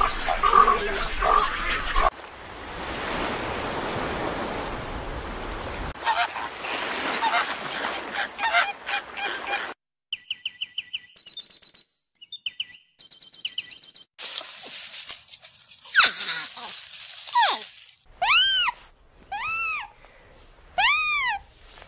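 A run of short animal sound clips, mostly bird calls: a few seconds of calls, stretches of hiss and clicking, a passage of rapid high chirps, and near the end a series of clear rising-and-falling calls about once a second.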